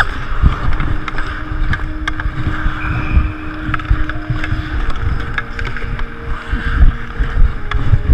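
Ice hockey skating heard from a head-mounted camera: skate blades scraping and gliding on rink ice, with a hockey stick clicking against the puck and ice at irregular moments. Wind from skating speed rumbles across the microphone.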